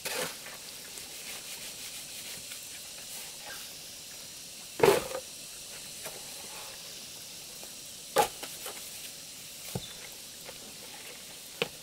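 Steel shovel scraping and turning a heap of wet cement mix on gravelly ground, in a few separate strokes; the loudest comes about five seconds in, with smaller ones later.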